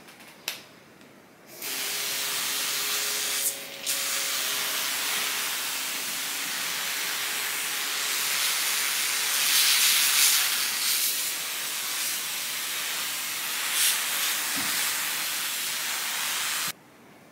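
Water spraying in a steady hiss onto sphagnum moss to soak it and loosen a rooted cutting. It pauses briefly once near the start and cuts off abruptly near the end.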